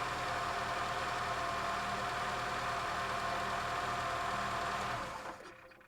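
Car engine idling steadily, then switched off about five seconds in, the sound dying away quickly.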